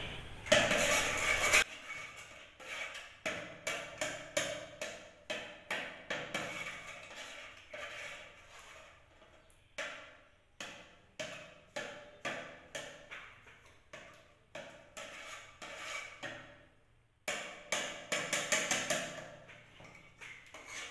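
Wire whisk beating runny egg batter in a metal pot, its wires clicking and tapping against the pot's sides in quick runs of strokes, with short pauses between the runs.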